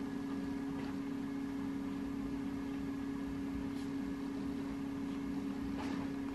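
A steady low hum, with a few faint scratches of a pen writing on notebook paper.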